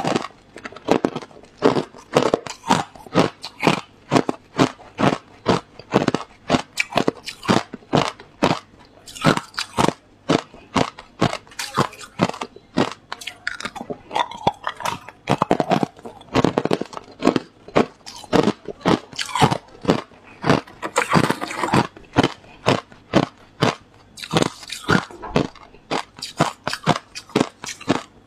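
Hard clear ice chunks being bitten and chewed: a rapid, continuous run of sharp crunches, several a second, as the ice cracks between the teeth.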